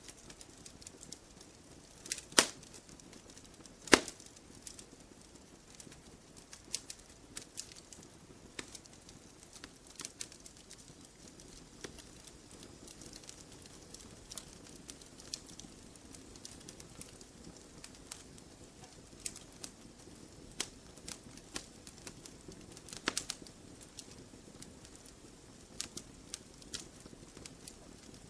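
Wood campfire crackling: irregular sharp snaps and pops over a low steady rustle of flame, with two louder pops about two and four seconds in and a brief flurry of crackles a little past twenty-three seconds.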